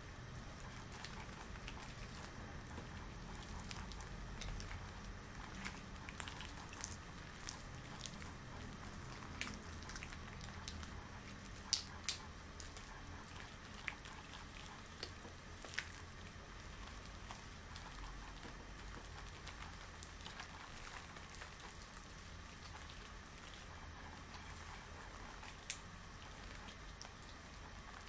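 Extra-long latex gloves being handled and rubbed close to the microphone: a soft continuous rustle with scattered sharp crackles and snaps of the rubber, the loudest about twelve seconds in.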